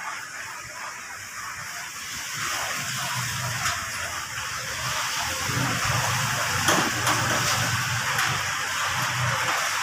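Heavy rain falling in a steady hiss that grows louder over the first several seconds.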